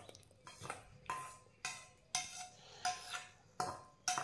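A spoon clinking against a dish: about eight separate light strikes, roughly one every half second, each with a short ring.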